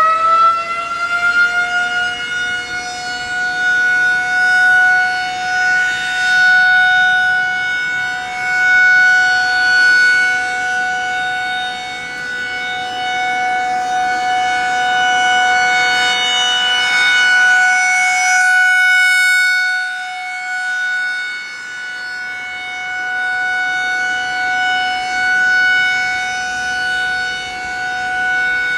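Federal Signal 2001-SRN electromechanical outdoor warning siren sounding a steady alert tone for its monthly test. It finishes winding up to full pitch in the first couple of seconds, then holds one steady pitch that swells and fades in loudness every few seconds.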